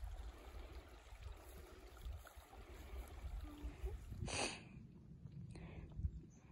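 Faint wind rumble on the microphone, gusting unevenly, with one short sharp noise about four seconds in.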